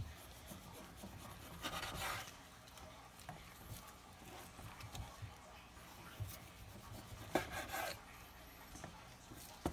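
Knife slicing through a dry-aged rib roast on a wooden cutting board, with gloved hands moving the meat: faint rubbing and scraping, with two louder scraping passes about two seconds in and again about seven and a half seconds in, and a sharp tap near the end.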